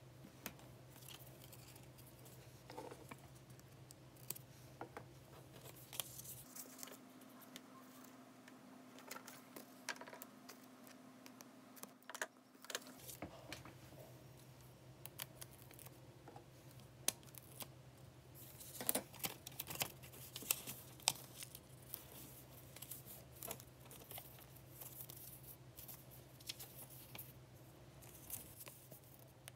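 Light crackles, taps and rustles of paper and double-sided tape being handled, stuck down and folded, busiest about two-thirds of the way through, over a faint steady low hum.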